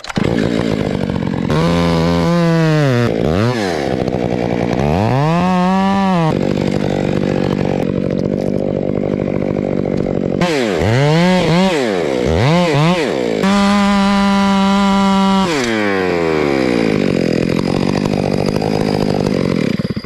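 Small two-stroke top-handle chainsaw being revved up and down in a series of throttle blips, held at full throttle for about two seconds, then dropping back to idle. The engine sound cuts off abruptly at the end.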